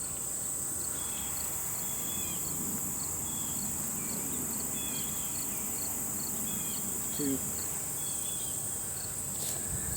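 Steady high-pitched drone of insects, with short chirps repeating over it every half second or so.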